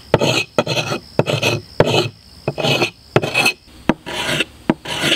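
The knife edge of a file is stroked back and forth along a new wooden hammer handle, smoothing out chatter marks left by a round rasp. It rasps in short strokes, a little under two a second, many of them starting with a sharp click.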